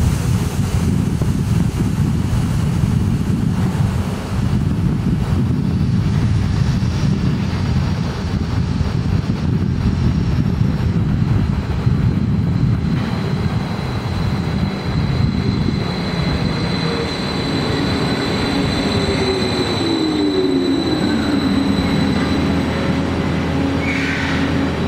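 Freight train at a station, with a steady low rumble throughout. About halfway a thin high squeal comes in, and near the end a whine falls in pitch and then holds steady.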